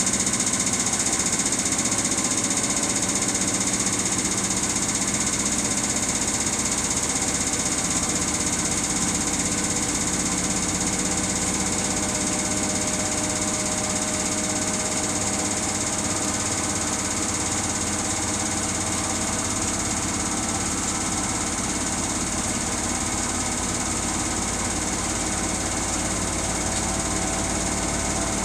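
Samsung washing machine spinning its drum at a steady speed: an even mechanical running sound with a high hiss and a low hum that holds without a break.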